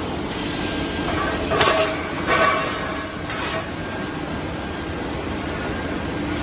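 Steady running noise of factory machinery, with three ringing metal knocks in the first few seconds, the first the loudest, as a steel gas cylinder is handled on the threading machine's roller conveyor.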